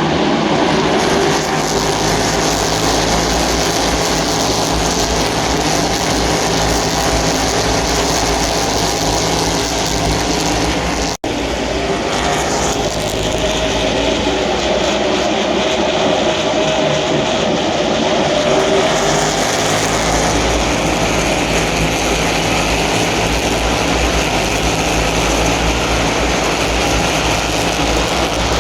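NASCAR Cup stock cars' V8 engines running at race speed around the track, a loud, steady, dense engine noise from several cars at once, shifting in pitch as cars pass. The sound cuts out for an instant about eleven seconds in.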